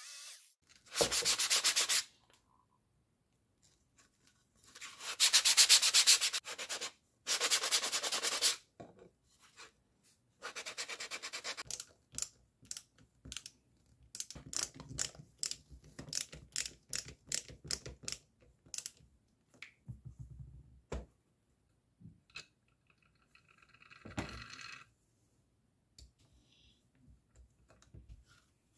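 Corded jigsaw cutting through a sheet of HDPE plastic in four short, loud bursts over the first dozen seconds. Then a cordless drill drives screws into the plastic panel: a run of quick clicks and a couple of brief whirs.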